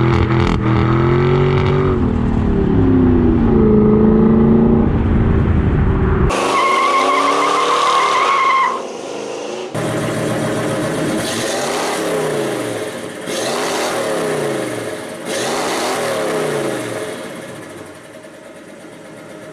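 Car engines revving in a series of abruptly cut clips, their pitch rising and falling, with a high steady squeal from about six to nine seconds in.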